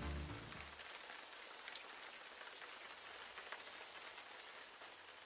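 Music dies away in the first second, leaving a faint, even hiss with scattered light ticks, like rain on a surface.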